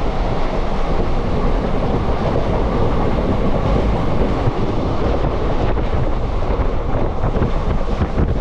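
Passenger train running along the track, heard from on board: a steady, loud rumble of wheels on the rails.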